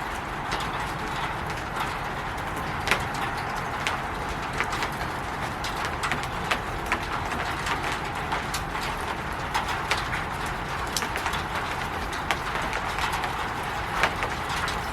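Rain falling on a roof: a steady patter with irregular louder drops tapping sharply, a couple of them standing out.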